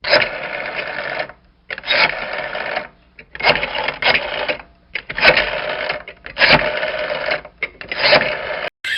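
Phone ringtone ringing in repeated rings of about a second each, with short breaks between them.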